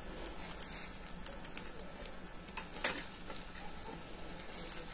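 Meat sizzling in a wire grill basket over hot charcoal in a metal brazier, a steady hiss with scattered small crackles and one louder pop a little under three seconds in.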